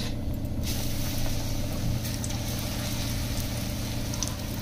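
Besan-battered cauliflower pakoras sizzling as they deep-fry in hot oil in an iron kadhai. The steady sizzle starts about half a second in, as the battered pieces go into the oil, over a low hum.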